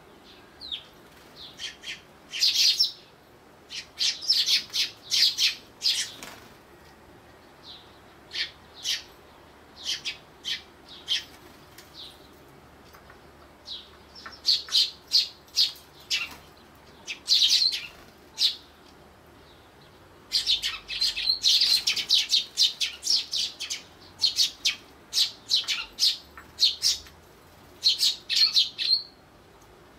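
Eurasian tree sparrows chirping: short, high chirps in bursts, with a dense run of rapid chirps about two-thirds of the way through.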